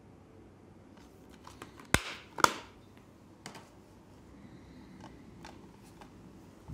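Blue plastic Blu-ray case being handled and snapped shut: two loud sharp plastic clicks about half a second apart, the second with a short ringing tail, surrounded by lighter clicks of the case being handled.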